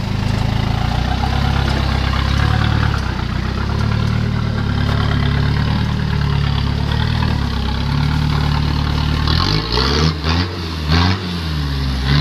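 Toyota Hilux's 3.0 turbo-diesel engine chugging at low revs as the truck crawls over rock. Near the end it is revved several times in quick succession, its pitch rising and falling with each blip.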